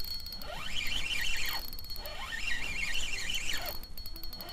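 Daiwa Freams spinning reel working while a hooked pike is played: the drag ratchets out line in bursts of a second or so, with short pauses between.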